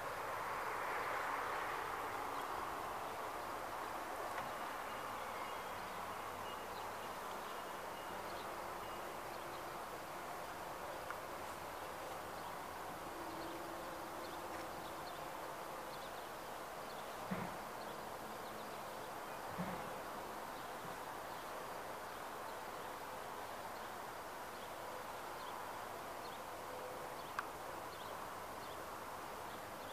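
Steady background hiss of open-air ambience, with a few faint clicks or taps scattered through it.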